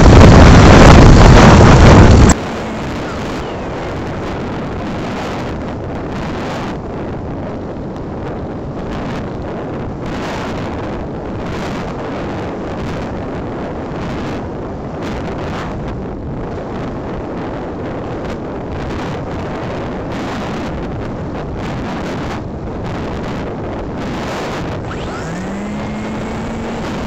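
RC plane in flight recorded by its onboard phone microphone: a loud, overdriven rush of airflow and propeller noise. About two seconds in it drops abruptly to a quieter steady rushing that continues.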